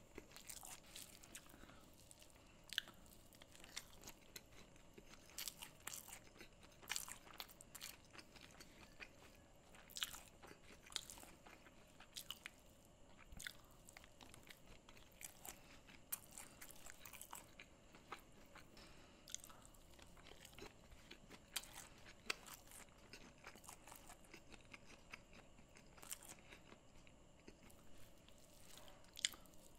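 Close-miked eating: crisp bites and crunchy chewing of food eaten by hand, with many short, sharp crunches scattered throughout at a low overall level.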